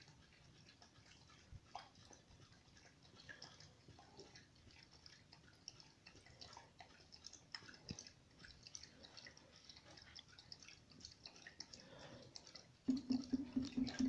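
Faint, scattered high-pitched ticks and chips from small birds, dark-eyed juncos, feeding at a seed tray. About a second before the end, a louder steady low hum begins.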